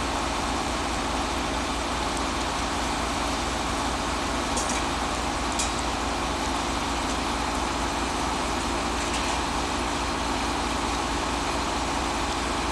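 Engine of a catenary-wiring works train running steadily at idle, with a couple of faint clicks about five seconds in.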